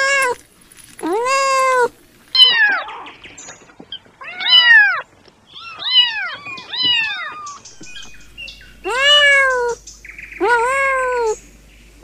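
Kittens meowing, about eight separate meows in a row, each rising and then falling in pitch.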